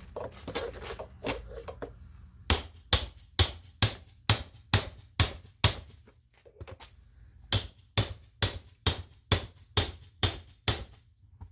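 Heavy hammer blows on the door of a Sentry fireproof safe, being broken open: two runs of about eight sharp strikes, roughly two a second, with a short pause between them.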